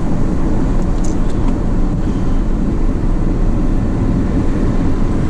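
Steady rumble of a car driving at road speed, engine and tyre noise heard from inside the cabin.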